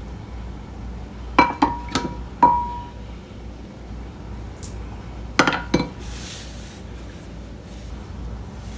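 Hard kitchenware clinking together, each strike ringing briefly: four clinks in quick succession about a second and a half in, then two more a few seconds later.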